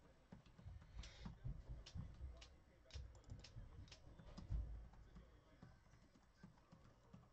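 Faint, irregular clicking of typing on a computer keyboard, with a few soft low thumps, mostly in the first five seconds.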